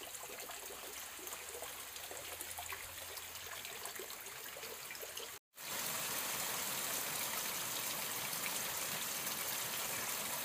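Rain and running water: many small drop ticks and trickling water over a flooded, muddy yard. After a brief cut about five seconds in, a louder, steadier hiss of rain among wet foliage.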